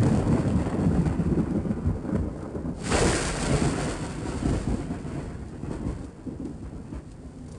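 Thunder: a low rolling rumble, a sudden sharp crack about three seconds in, then rumbling that slowly fades.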